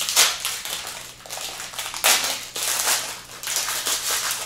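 Crisp crackers, crunchy like chips, being bitten and chewed: several uneven bursts of crunching.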